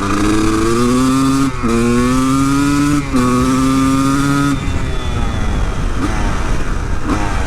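Honda CR250's two-stroke single-cylinder engine accelerating hard through the gears. The rising pitch breaks at two upshifts, about one and a half and three seconds in, then drops back after about four and a half seconds as the throttle is closed. It is being run hard to clear out an engine that loads up with cruising.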